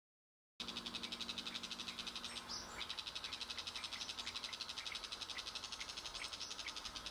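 An animal's rapid, steady pulsing trill, about ten pulses a second, that starts abruptly just after the beginning, with a few faint short chirps over it.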